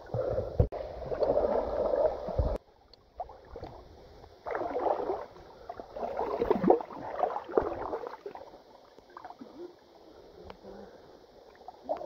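River water sloshing and gurgling close to the microphone as a person wades and reaches into the shallows, in uneven bursts; the sound cuts off abruptly about two and a half seconds in and comes back in separate bursts later.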